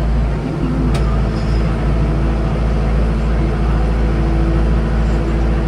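Mahindra diesel tractor engine running steadily under load while pulling a row-making implement through garden soil. A single sharp click about a second in.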